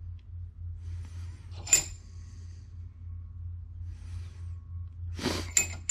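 Brake caliper piston spreader being turned slowly to press the caliper piston back, making room for thicker new pads: faint metallic scraping with a sharp ringing click about a second and a half in, and a louder scrape with two more clicks near the end, over a steady low hum.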